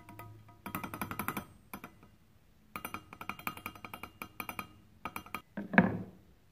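A metal tool rapidly rapping the threaded draw rod of a riser pattern set in greensand, loosening the pattern before it is drawn. The rapping comes in three quick runs of ringing metallic clicks, with one louder knock near the end.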